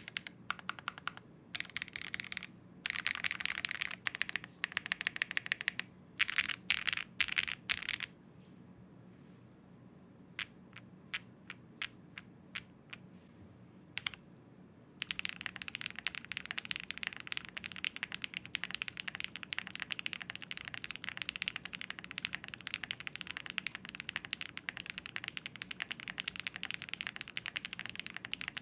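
Zoom65 V3 mechanical keyboard being typed on. At first the typing comes in bursts of fast keystrokes, built in its pogo pin mount. Then a few seconds of single, spaced key presses follow. About halfway through, continuous fast typing starts, with the board now built in its magnetic levitation mount.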